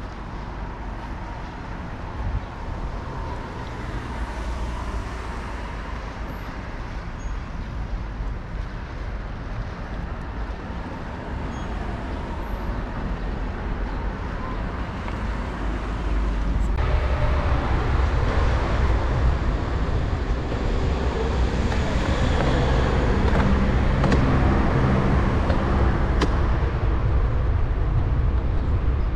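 Outdoor road traffic noise with a low rumble of wind on the microphone. About two-thirds of the way in it jumps abruptly louder and stays louder.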